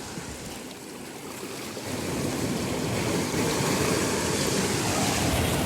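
Small sea waves washing in over the shallows, the rush of water growing louder about two seconds in and then holding.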